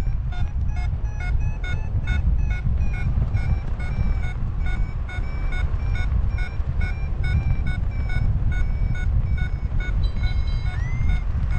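A paragliding variometer beeping steadily, about three short beeps a second with the pitch wavering slightly, the pattern it gives while the glider is climbing. Heavy wind rumble on the microphone runs underneath.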